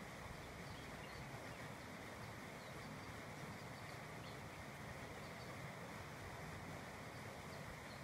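Steady rush of a small waterfall pouring into a rock pool, with a few faint high chirps.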